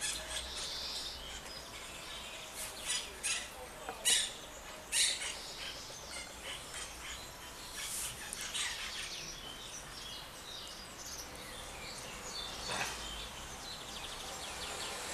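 Monk parakeet giving short, sharp, scattered calls, a few of them louder about four, five and eight seconds in.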